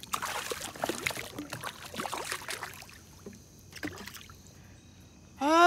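A hooked crappie thrashing and splashing at the water's surface beside the boat: a run of irregular splashes for the first few seconds, then quieter with a single knock. A voice sounds at the very end.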